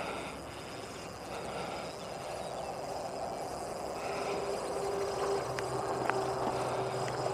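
Heavy breathing from the angler, suffering from hay fever, with two breaths about four seconds apart over steady outdoor noise. A low engine hum from distant traffic joins about four seconds in.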